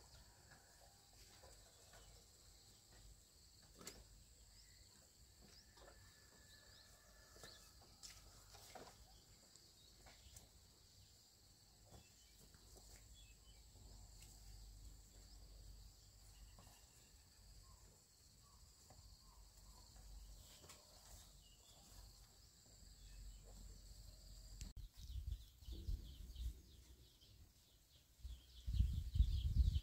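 Faint rural ambience: a steady high insect drone with scattered light clicks and occasional bird chirps. About 25 seconds in the drone stops, and chirping and an uneven low rumble grow louder toward the end.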